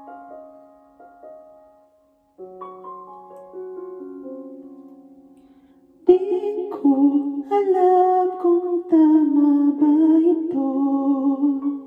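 Piano accompaniment of a karaoke backing track playing alone, then about six seconds in a woman's voice comes in singing through a handheld karaoke microphone with its echo effect on, louder than the piano.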